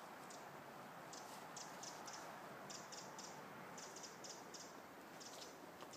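Faint, quick wet ticking and smacking from Kuvasz puppies licking and eating at hands and a bowl. The ticks come in irregular little clusters of two to four.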